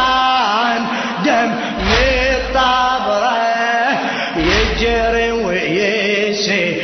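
Arabic Shia lamentation chant (latmiya) sung in long, wavering melodic lines, with a deep bass note returning every two to three seconds.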